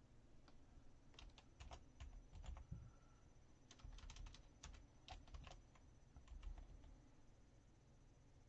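Faint typing: irregular key clicks in short runs with brief pauses between them.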